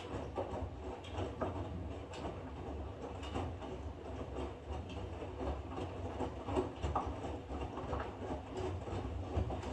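Front-loading washing machine tumbling a wet load of bedsheets and towels in its drum: a steady low motor hum with irregular splashing and soft knocks of the laundry turning over.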